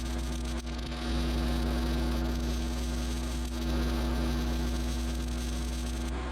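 Generac 7000EXL portable generator running steadily under load with a deep hum, and a steady buzzing from the work on the steel gate pipe that stops just before the end.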